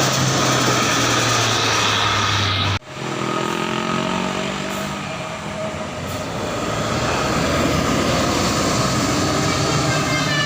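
Large bus diesel engines passing close by: a steady loud engine drone cuts off suddenly about three seconds in. Another bus engine follows with a falling drone and grows louder toward the end.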